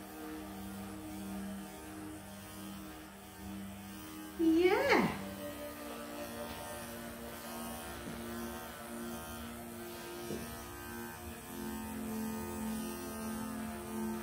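Bravura cordless electric clippers running with a steady hum as they shave through a Persian cat's heavily matted coat. The hum grows a little louder near the end.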